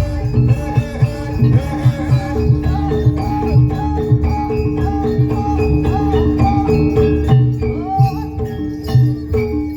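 Live jaranan gamelan music: a bending melody line and repeated low drum strokes over held gong-like tones, with rattling percussion.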